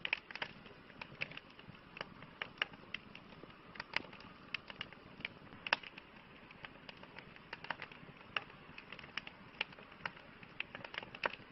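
Wood campfire crackling: a steady soft hiss with irregular sharp pops from the burning logs, a few each second.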